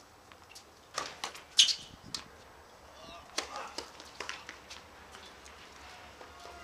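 Sharp knocks of tennis balls being struck and bounced on outdoor hard courts, spaced irregularly, the loudest about a second and a half in. Faint distant voices and a few short squeaks are also heard.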